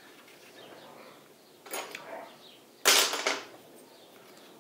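Metal parts of a U445 tractor gearbox knocking and scraping as the shift shaft and forks are worked into the housing: a short clink a little under two seconds in, then a louder, longer metallic scrape about three seconds in.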